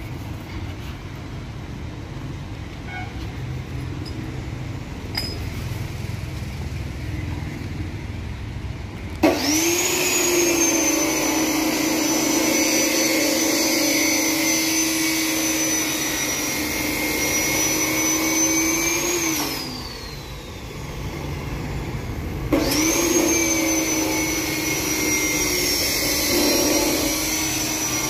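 Handheld angle grinder on a steel gate frame: it starts with a sudden high whine about nine seconds in, runs steadily for about ten seconds, spins down with a falling whine, then starts again a few seconds later and runs on.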